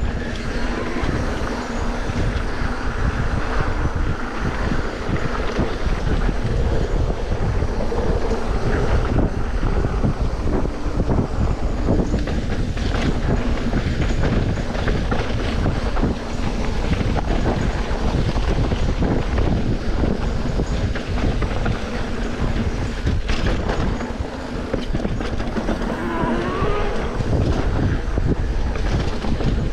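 Steady, loud rushing noise of wind buffeting the microphone.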